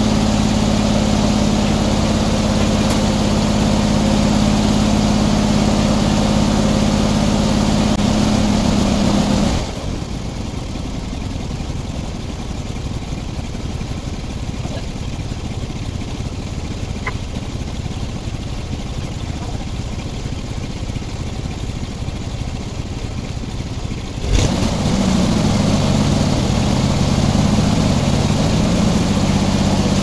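Engine driving a circular sawmill, running steadily. About ten seconds in the sound drops abruptly to a quieter, rougher rumble; about 24 seconds in it comes back with a click, and the engine's pitch rises and falls a little.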